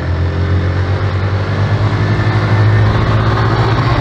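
Motorcycle engine running steadily under way, heard from the riding bike with road and wind noise; a low drone that swells slightly a couple of seconds in.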